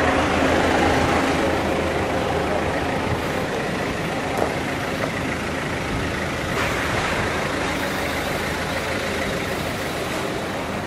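A steady engine hum, like an idling motor, with a couple of faint knocks partway through.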